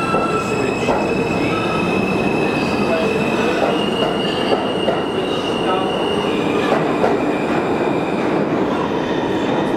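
R160A subway train running through the tunnel, heard from inside the car: a steady rumble of wheels on rails with high, thin squeals from the wheels that shift in pitch a few times.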